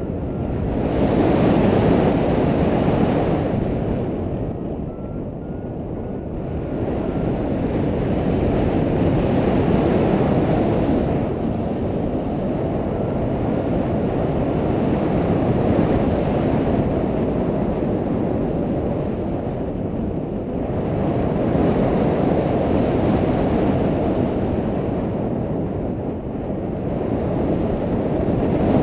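Wind rushing over the camera microphone: a heavy low rumble that swells and eases every few seconds.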